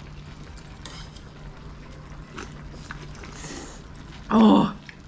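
Mouth sounds of eating cold naengmyeon: soft chewing and sipping of the cold broth from the bowl, then a short loud voiced sound about four seconds in.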